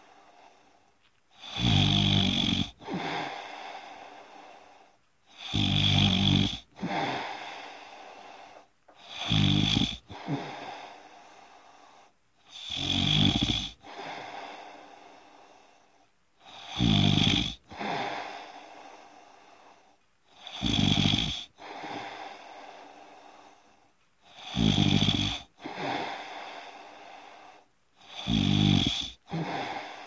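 Someone snoring deeply in sleep: eight loud, rattling snores, about one every four seconds, each followed by a fainter trailing breath out.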